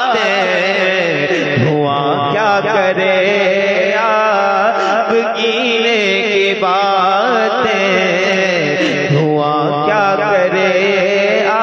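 Naat singing: a solo voice drawing out long, ornamented melodic phrases of a couple of seconds each, with no clear words, over a steady held drone.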